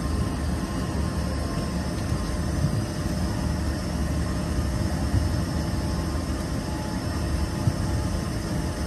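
Steady low rumble of cabin noise inside an Embraer EMB145 regional jet while it sits before departure.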